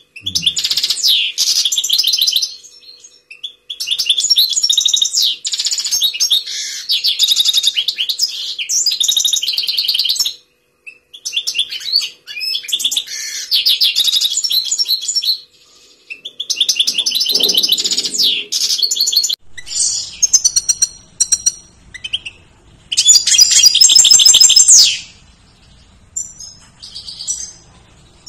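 European goldfinch singing in a cage: bursts of rapid, high twittering song a few seconds long, separated by short pauses.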